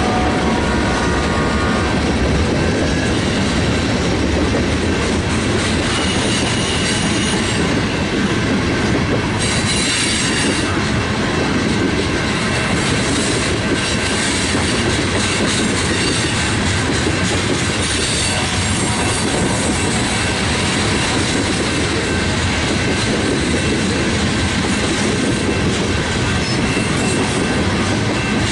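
Freight train cars rolling past close by: a steady rumble of steel wheels on rail with clickety-clack over the joints and some brief high wheel squeals about a third of the way through.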